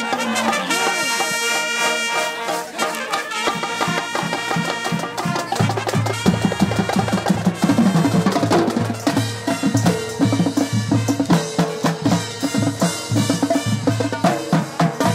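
High school marching band playing: brass and woodwinds hold chords at first, then about five seconds in drums and low brass come in with a steady, driving beat.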